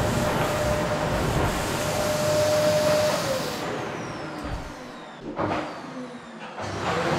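Qilive vacuum cleaner motor running with a steady whine, then winding down about three seconds in, its pitch falling as it is switched off. A short knock follows, and near the end the motor starts again and spins back up to full speed.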